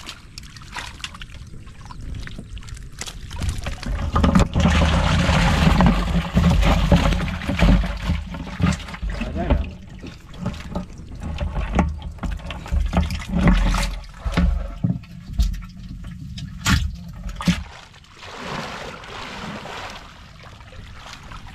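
Water splashing and trickling as a woven bamboo fish trap is handled in shallow paddy-channel water and its catch tipped into a plastic jerrycan, with many short knocks and rustles from the trap. Busiest and loudest through the middle, quieter near the end.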